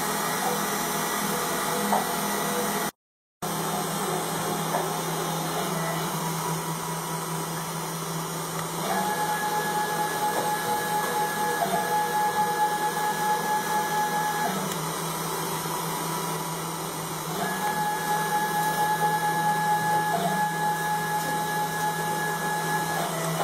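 Desktop CNC engraver running: a steady motor hum, with the stepper motors whining at one steady pitch during two long axis moves that start about nine and seventeen seconds in and each last several seconds. The sound cuts out completely for a moment about three seconds in.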